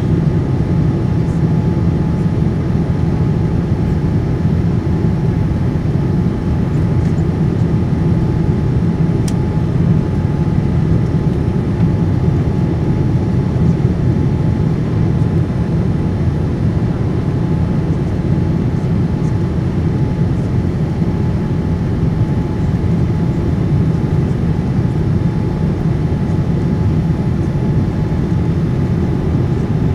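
Steady cabin noise inside a Boeing 787-9 airliner on approach: a deep, even rumble of airflow and the Rolls-Royce Trent 1000 engines, with a faint steady whine above it.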